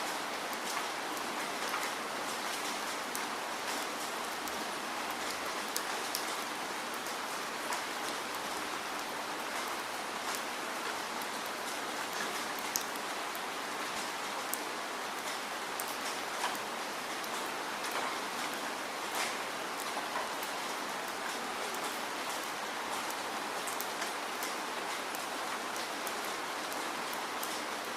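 Steady falling rain: a continuous hiss with many individual drops pattering on a surface.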